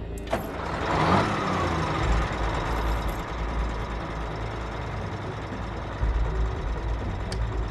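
Big-rig truck diesel engine started with the key: a click of the ignition, then the engine cranks and catches with a surge of noise. It settles into a steady low-pitched running and gets louder again about six seconds in.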